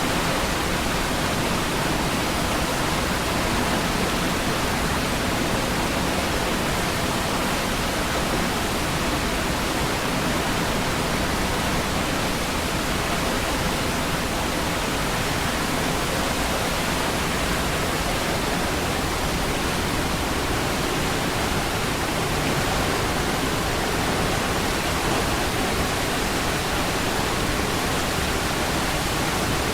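Steady, unbroken roar of Niagara Falls, a dense rush of falling water with no change or separate events.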